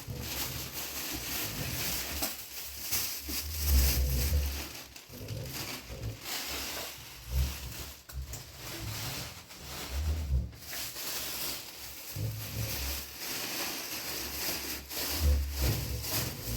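Strong wind blowing: a steady rushing hiss, with rumbling gusts buffeting the microphone about four seconds in, about ten seconds in, and again near the end.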